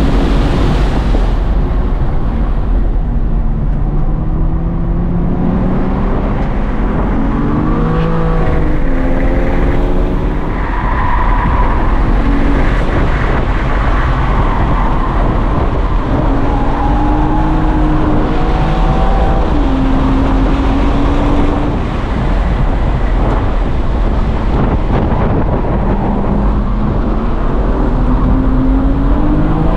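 Engine of a 2023 BMW M2, its twin-turbo inline-six heard from inside the cabin during a hard lap. Its pitch climbs under acceleration and falls on braking and gear changes, with a sharp drop and climb about eight seconds in, over constant loud road and wind noise.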